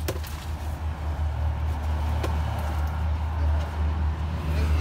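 A steady low mechanical hum, like a running vehicle engine, with a few sharp clicks from a swivel seat's metal fittings being handled, once at the start and once about two seconds in.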